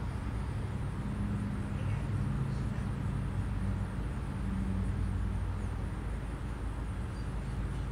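A steady low rumble of background noise, with no distinct events.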